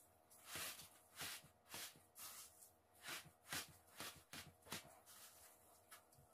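Faint crunchy rustling of panko breadcrumbs as gloved hands scoop them and press them firmly onto a pork cutlet, in quick strokes about two a second.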